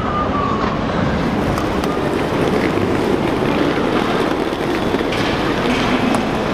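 Loud, steady vehicle noise without a break. A faint high tone fades out about half a second in, and a low hum comes in near the end.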